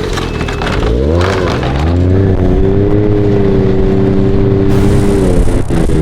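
Snowmobile engine running under way, heard close up from the machine. Its note drops and climbs back about a second in, holds steady, then falls off near the end as the throttle is eased.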